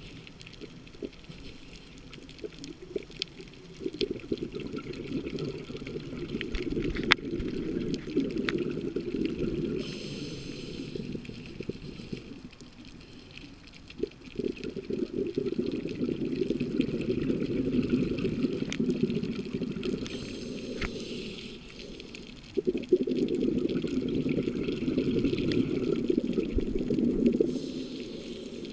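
Scuba diver's regulator breathing heard underwater, through about three breaths: several seconds of low bubbling on each exhalation and a short hiss on each inhalation. Sharp clicks are scattered throughout.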